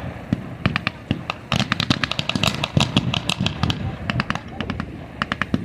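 Battle-reenactment gunfire from blank-firing rifles and automatic weapons: many sharp shots, some in quick strings, over a background rumble.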